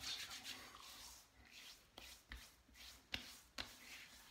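Hands rubbing pre-shave oil into stubble: faint skin-on-skin rubbing and swishing, with several short faint clicks from a little past the halfway point.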